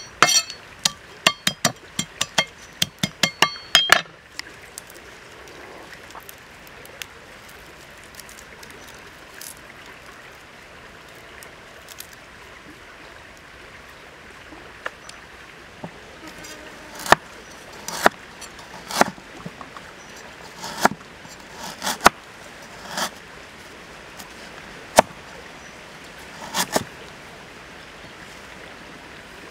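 A cleaver chopping coriander on a thick round wooden chopping board in a quick run of chops for the first four seconds, over the steady rush of a stream. Later, single knife chops on the board, about one a second, over the same stream.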